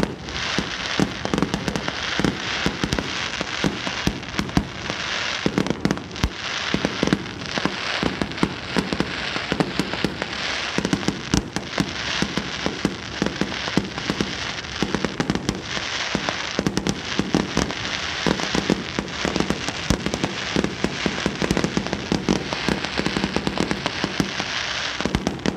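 Fireworks display going off in a continuous barrage: dense crackling and rapid pops over a steady hiss, with louder bangs scattered throughout.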